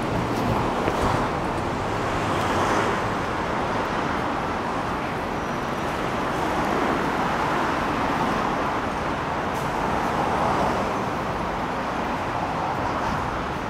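Road traffic going past: a steady wash of tyre and engine noise that swells and eases every few seconds as vehicles pass.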